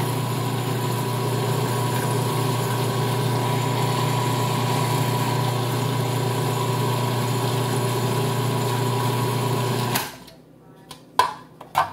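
Electric food processor motor running steadily while chopping a load of vegetables, then cutting off abruptly about ten seconds in. Two sharp plastic clicks follow near the end as the lid and bowl are handled.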